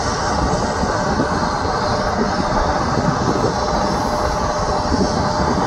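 Bell 429 helicopter running on the ground with its rotor turning: a steady, unbroken turbine and rotor noise with a faint steady whine in it.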